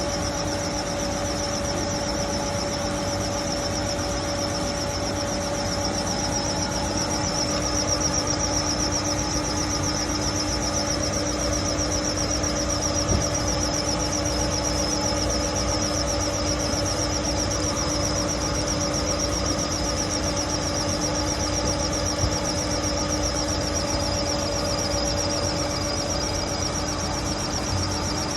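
Gladel washing machine spinning at a steady speed, with a constant motor whine over an even rushing noise.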